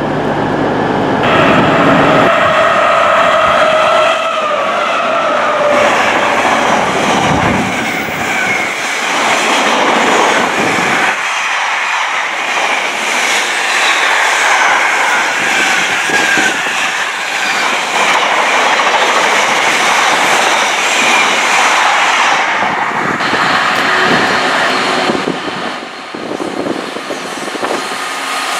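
Freight wagons running past at speed: a steady rush and clatter of wheels on the rails, with a held high tone from the wheels in the first few seconds. The loudest stretch is an intermodal container train going by.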